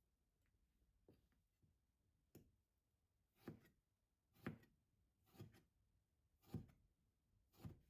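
Quiet kitchen work: a run of soft knocks, faint at first, then steady at about one a second from around halfway.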